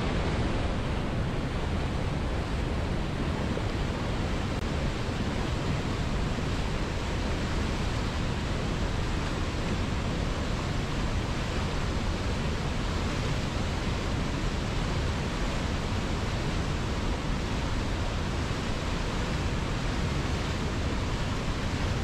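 Fast mountain river rushing over rocks in white-water rapids: a steady, unbroken rush of water.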